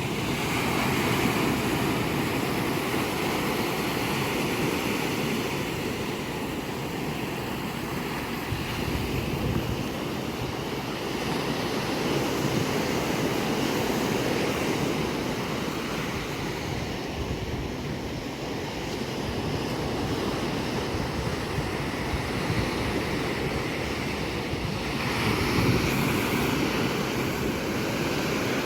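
Ocean waves breaking and washing onto a sandy beach, a steady surf that swells and eases every few seconds, with some wind on the microphone.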